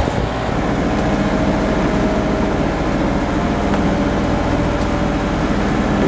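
A sailing yacht's inboard diesel engine running steadily while motoring, a constant drone heard from inside the cabin below decks.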